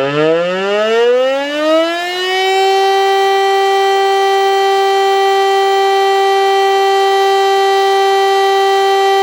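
DS977 mushroom-type electric civil-defence siren running its weekly test: it is still winding up, its wail rising in pitch for about the first two seconds, then holds one steady, loud tone.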